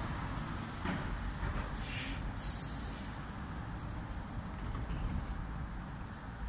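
Street traffic: a steady low rumble of passing vehicles, with a short sharp hiss about two and a half seconds in.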